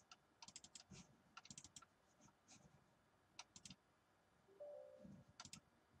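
Near silence with faint computer clicks in a few small clusters of quick clicks.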